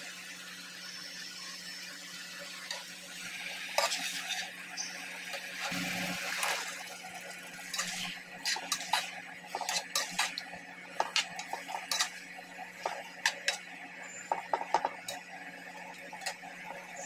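Steel spatula clinking and scraping against a non-stick frying pan while potato and vegetable pieces are stirred into curry gravy, with many short sharp clicks in the second half. A steady low hum runs underneath.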